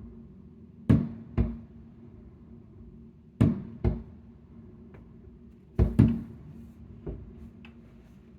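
Aerial firework shells bursting with sharp booms, mostly in pairs about half a second apart: three pairs, then a weaker bang near the end, with a few faint crackles between.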